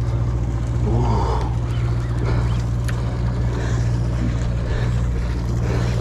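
Sportfishing boat's engine running with a steady low drone, with sea water washing along the hull and faint voices in the background.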